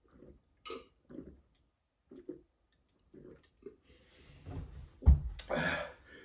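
A man gulping down a carbonated malt beverage from a glass in a run of short swallows, then about five seconds in a loud burp, the loudest sound here.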